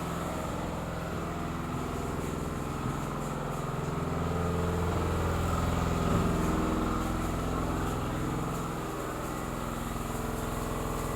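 Emergency fire pump running steadily after start-up, its drone swelling slightly about four seconds in and easing back a few seconds later.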